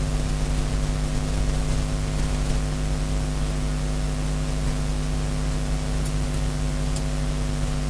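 Steady electrical hum with a constant hiss, unchanging throughout, with two faint ticks about six and seven seconds in.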